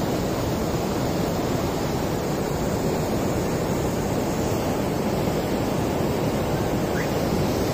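Steady rush of water pouring through a reservoir's opened floodgates and churning in the channel below, released to lower the reservoir level.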